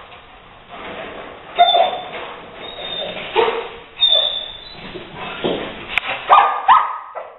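Rottweiler giving a string of short barks and yips, excited at a squirrel it has cornered, with higher-pitched yelps near the end.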